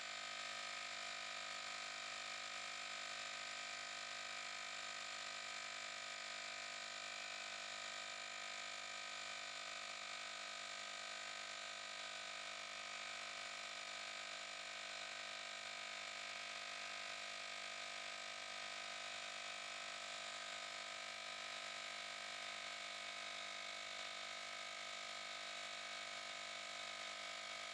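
Cordless handheld tire inflator (JM-8817) with its small compressor running steadily, pumping up a car tire toward its 40 PSI automatic cut-off: an even, unchanging drone.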